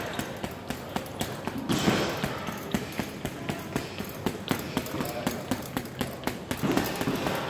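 Boxing gloves smacking a double-end bag in a fast, uneven run of punches. Sharp hits come about three or four times a second.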